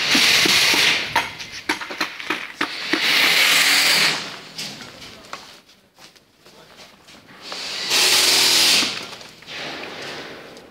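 Three loud bursts of hissing, each about a second long, with quieter irregular knocks and clatter between them.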